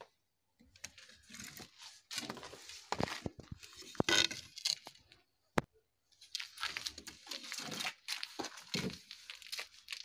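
Irregular crunching, crackling and rustling of dusty debris and objects being handled, broken by short silent gaps, with one sharp click about five and a half seconds in.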